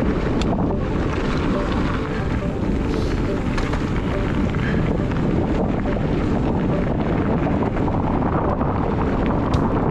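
Wind buffeting the microphone of a chest-mounted action camera over the steady rumble of mountain-bike tyres rolling on a gravel track, with a few sharp clicks near the end.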